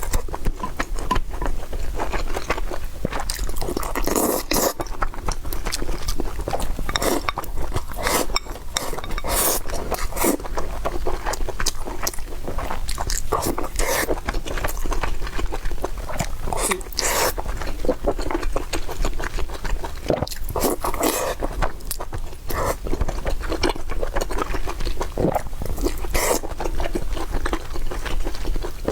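A person biting and chewing food, with many quick, crisp clicks and wet smacking sounds at an uneven pace.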